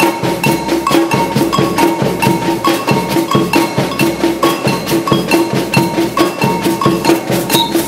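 Samba batucada percussion ensemble playing a steady, fast groove on surdo bass drums, snare drums and long metal ganzá shakers, with a high two-note pattern repeating above the drums.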